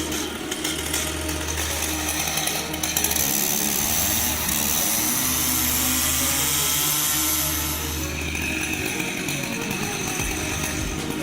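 Stihl MS 880 two-stroke chainsaw running at high revs, cutting into a large oak trunk.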